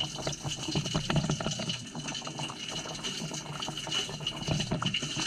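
Washing machine filling with water for its rinse, water gushing and splashing irregularly inside the drum, heard from inside the drum, with a thin steady high tone over it.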